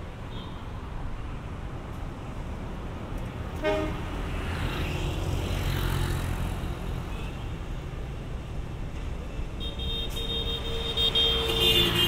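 Steady low engine rumble of traffic, with a brief horn toot about four seconds in and a longer horn blast of several notes near the end.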